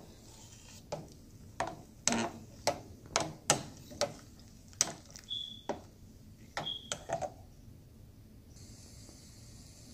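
Plastic spatula stirring milk in a stainless steel pan, tapping and scraping against the pan's sides: a string of light irregular knocks, about two a second, with a couple of brief thin squeaks, stopping about seven seconds in.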